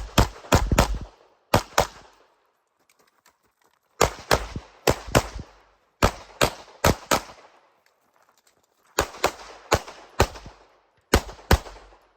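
Glock 34 9mm pistol firing rapid strings of shots, in quick clusters of two to five with pauses of one to two seconds between them, as the shooter engages target arrays during a timed practical shooting stage.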